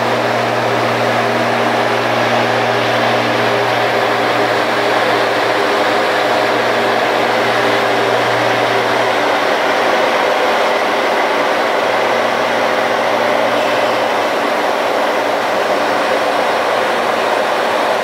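Large vane axial flow fan running: a loud, steady rush of air with a low hum and several steady lower tones. The low hum fades about nine seconds in.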